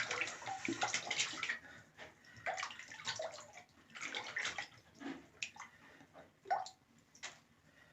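Water splashing and sloshing in a bathtub in irregular bursts, loudest in the first second or so, then fainter splashes that die away near the end.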